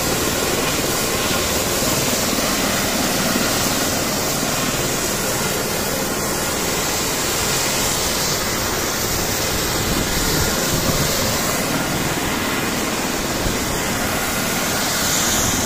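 Airbus H135 twin-turbine helicopter running on the ground with its rotor turning: a loud, steady, even turbine-and-rotor noise that holds without a break.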